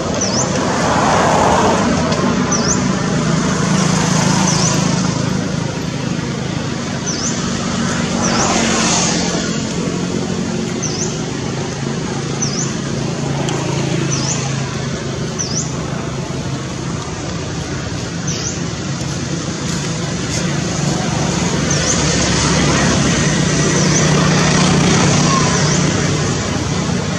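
Road traffic: motor vehicle engines running as a steady low hum that swells and fades as vehicles pass, loudest near the start and again near the end. Over it a bird repeats a short, high, falling note every second or two.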